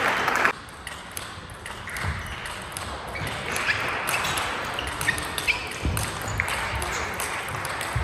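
Table tennis rally: the ball clicks in quick succession off rackets and table from about three and a half seconds in, over steady hall background noise. A louder wash of hall noise cuts off suddenly about half a second in.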